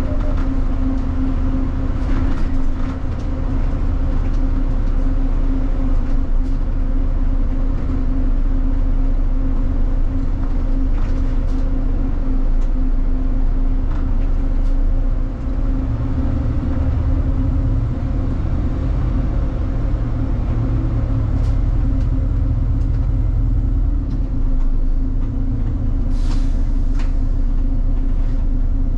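City bus running, heard from inside the cabin: a steady low rumble with a constant engine hum, and scattered faint clicks and rattles, one sharper rattle near the end.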